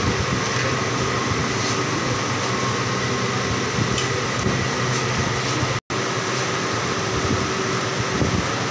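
Steady hum of running workshop machinery: an even noise with a few faint held tones. It cuts out for an instant about six seconds in.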